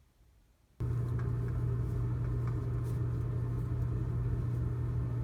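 Steady low mechanical hum with a rumble, cutting in abruptly about a second in and holding level.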